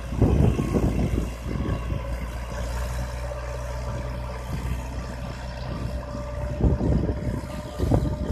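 BC404 40 hp tractor's engine running steadily under load as it pulls a plough through the soil, with wind buffeting the microphone at the start and again near the end.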